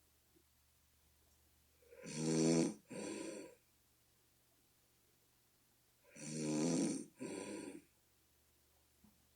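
A person snoring in sleep, a deep buzzing snore likened to a bullfrog. Two snores come about four seconds apart, each a long loud buzz followed at once by a shorter second one.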